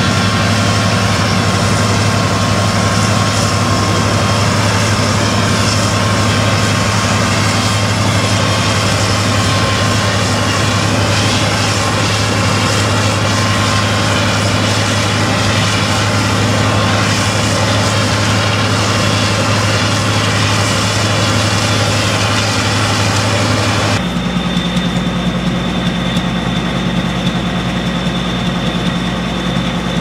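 John Deere S790 combine harvester running under load as it harvests: a steady diesel engine and threshing drone. About 24 seconds in the sound cuts to the machine close by and standing still, still running with a steady drone and a high whine.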